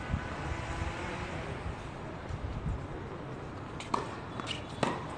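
Steady low rumble of city traffic, then a tennis ball bounced twice on the hard court about a second apart near the end, as a player readies to serve.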